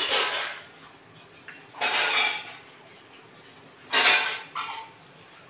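Short clattering of steel kitchen utensils, three times about two seconds apart, each brief and bright.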